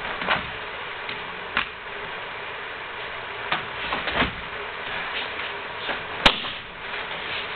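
Dull thuds and slaps of bodies hitting the dojo mats as martial artists throw each other and take breakfalls, with the swish of moving feet and clothing between them. One sharp slap comes about six seconds in, over a steady background hiss.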